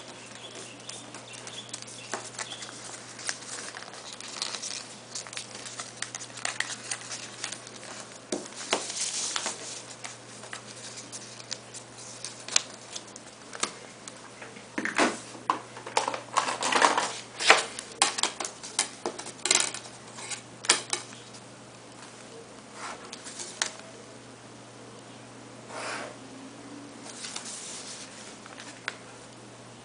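Sheet of paper being folded and creased by hand on a desk: rustling, sliding and sharp creasing strokes, busiest around the middle, over a steady low hum.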